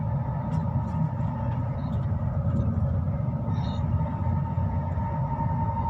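Passenger train running: a steady low rumble with a steady high whine over it and a few faint light clicks.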